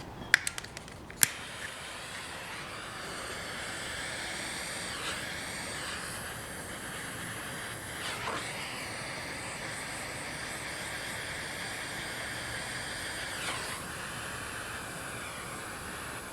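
A few sharp clicks, then a small butane soldering torch's flame hissing steadily as it shrinks heat-shrink tubing.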